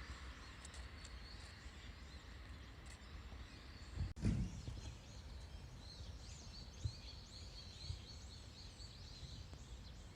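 Faint birds chirping in many short, quick notes over a quiet outdoor background, with a brief low thump about four seconds in.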